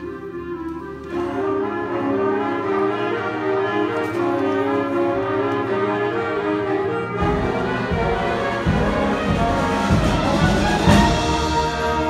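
Concert band of woodwinds and brass playing, with the sound filling out about a second in. From about seven seconds in, heavy low strikes join and the music builds louder toward the end.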